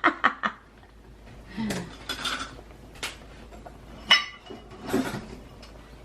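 A metal utensil clinking and scraping against a cooking pot several times while scum is skimmed off boiling beef broth, with one sharp, ringing clink about four seconds in.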